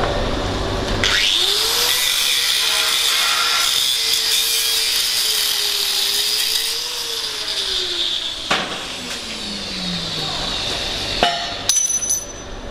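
Angle grinder spinning up about a second in and grinding through a tack weld on a steel pipe joint, cutting the top tack so the branch can be twisted over; the grinding stops about eight seconds in and the motor winds down. A few sharp clicks near the end.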